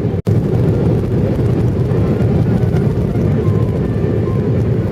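Steady low rumble of an airliner's engines and airflow heard inside the passenger cabin. A brief dropout about a quarter second in breaks the recording.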